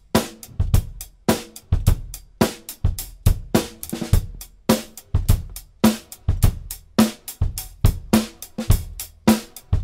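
Live funk band playing an instrumental groove: a drum kit keeps a steady beat of kick, snare and hi-hat, with electric bass and electric guitar playing along. Nobody sings.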